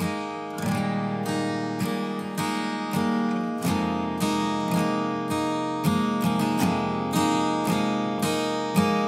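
Background music: an acoustic guitar strummed in a steady rhythm, about two strums a second.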